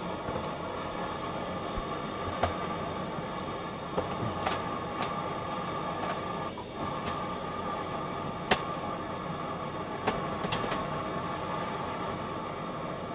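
Steady machinery hum and hiss inside a Mir deep-sea submersible's cabin, with scattered sharp clicks every second or two.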